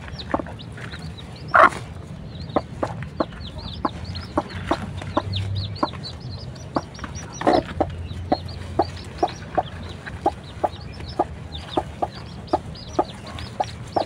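Newly hatched chicks peeping constantly in high, short cheeps while the broody hen sitting on them gives short, regular low clucks, about two a second. There is a louder outburst about a second and a half in and again about halfway through.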